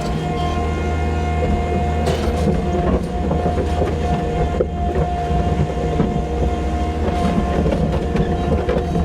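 Farm machine's engine running steadily as it pushes and mixes bedding and slurry, with a steady high whine over a low rumble and a few clanks.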